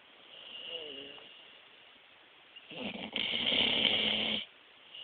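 Dog snoring in its sleep: a softer breath about a second in, then a loud snore lasting about a second and a half that cuts off suddenly.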